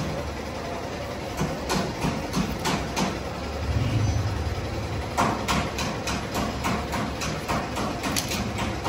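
Heavy machinery running with a steady low hum, with irregular knocks and clanks on top that come thick and fast from about five seconds in.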